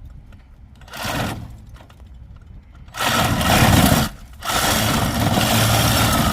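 A small motor running loudly, starting about three seconds in, stopping briefly after about a second, then starting again.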